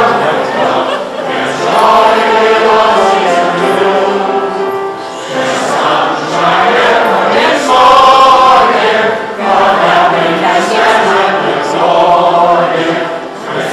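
A mixed choir of men and women singing a song together in long sustained phrases, with short breaks between phrases about five, nine and thirteen seconds in.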